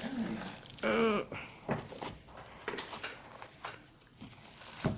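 A person's short vocal sound about a second in, amid scattered soft taps and handling noises.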